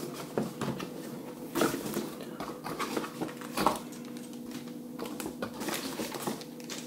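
Cardboard box and foam packing being handled and pulled apart: scattered rustles and light knocks, a few at a time, over a faint steady hum.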